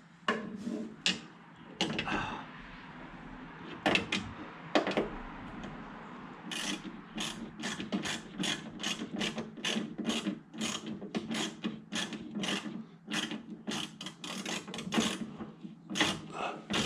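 Ratchet wrench clicking as a nut is cranked tight on a heater box mounting bolt. A few scattered clicks come first, then a steady run of about two or three clicks a second from about six seconds in.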